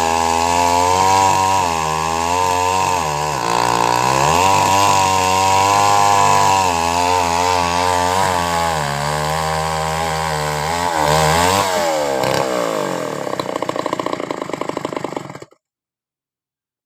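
Chainsaw engine running at high revs, its pitch sagging and recovering as it works through wood. About twelve seconds in the revs drop to a pulsing idle, and the sound cuts off abruptly near the end.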